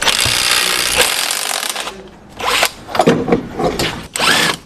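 A power tool runs steadily for about two seconds, then metal parts knock and clatter, while the half shaft with the broken CV joint is being taken off the car.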